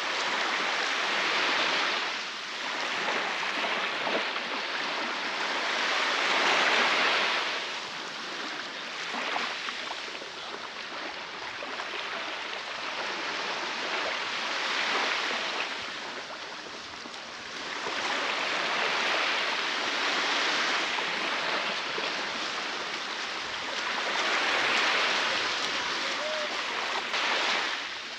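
Baltic Sea waves breaking and washing onto a beach. The surf rises and falls in five swells.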